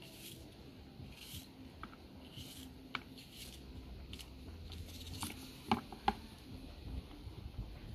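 Kitchen knife slicing through an onion held in the hand: a string of small, crisp cuts, with two sharper clicks about six seconds in.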